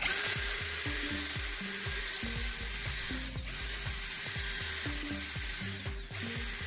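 Cordless drill running, its twist bit boring out a hole through a wooden handle. The sound starts suddenly and runs steadily, dipping briefly about halfway and again near the end.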